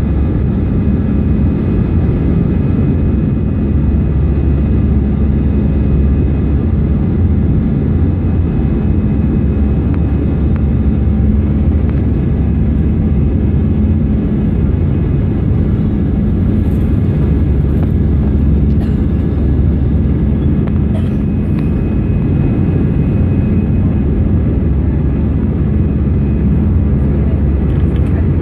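Airbus A319's jet engines and rushing air heard from inside the cabin while the airliner climbs after takeoff: a steady, loud rumble with faint steady whining tones above it.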